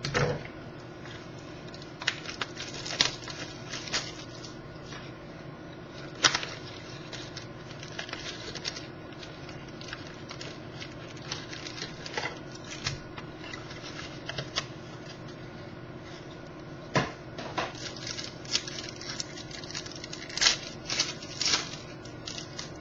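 Opening a box of trading card packs and handling the packs and cards: irregular crinkles, clicks and taps of cardboard and wrappers, over a faint steady hum.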